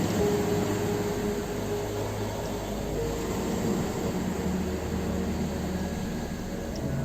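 Ocean surf washing on a shore in a steady rush, under soft music of long held notes that change pitch every few seconds.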